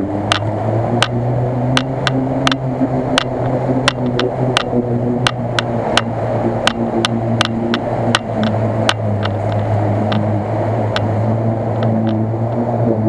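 Lada Niva (VAZ-2121) engine running steadily under load as it pushes through a muddy ford, a steady drone whose pitch wavers slightly. Sharp clicks every half second or so run over it.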